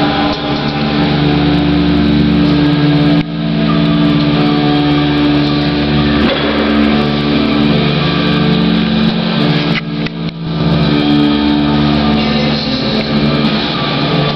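A motor running steadily with an even hum. The sound dips briefly about three seconds in and again around ten seconds.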